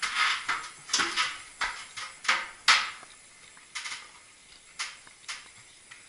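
Close handling noise: a run of sharp clicks and clunks, close together for the first three seconds with the loudest a little before halfway, then a few more spaced out. It comes from hands on the refrigerant manifold gauge set and hoses, or on the camera.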